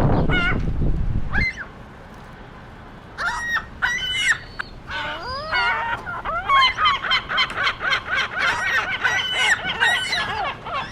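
A flock of seagulls calling: single repeated calls at first, building about six seconds in into many birds calling over one another. A low rumble runs under the opening second and a half and then stops.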